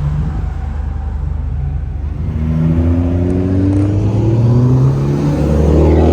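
Car engine accelerating, its pitch climbing through the gears and growing louder toward the end as the car draws near.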